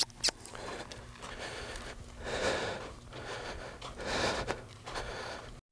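Horse blowing out hard through its nostrils twice, about two and four seconds in, each a breathy rush lasting around a second. Two sharp clicks come right at the start.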